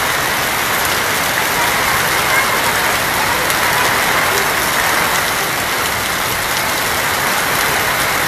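Steady heavy rain falling on a tin roof, an even hiss with a few faint drip ticks.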